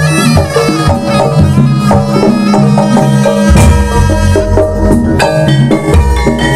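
Jaranan ensemble music: a reedy slompret shawm melody over kendang drums and gamelan-style percussion. A deep low tone, like a gong, swells in about halfway through.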